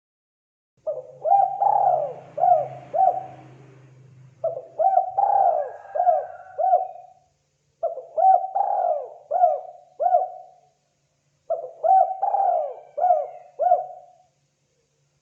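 Spotted dove cooing: four repeated phrases, each a quick run of five or six coos, with short pauses between them.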